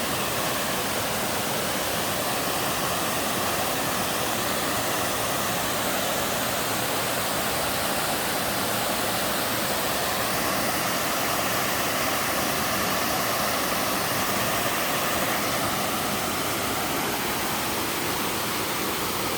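Waterfall: water pouring steadily over the upper drop of a two-tier mountain-stream waterfall, a dense even rush with no breaks.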